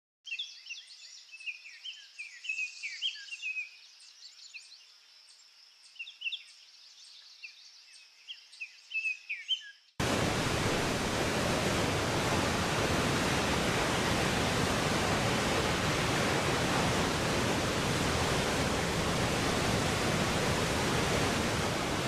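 Birds chirping and calling for about ten seconds, each call short and high-pitched. Then an abrupt switch to a loud, steady roar of rushing water from a waterfall and a rocky mountain stream, which cuts off suddenly at the end.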